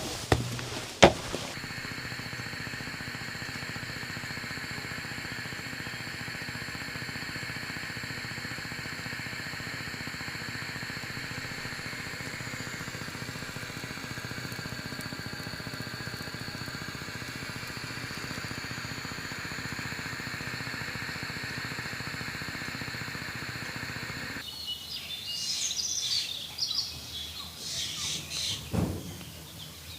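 A gas stove burner hissing steadily. Near the end it cuts off abruptly to forest ambience with birds chirping. At the very start there are a couple of last footsteps on earth steps.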